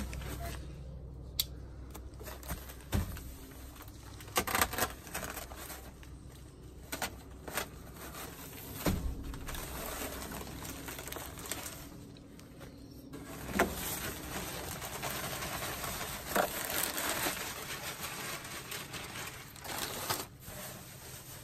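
A plastic-wrapped bale of pine shavings is handled and the loose shavings are shaken out and spread over a wooden pen floor: rustling and crackling with scattered clicks and knocks, busiest about two-thirds of the way through.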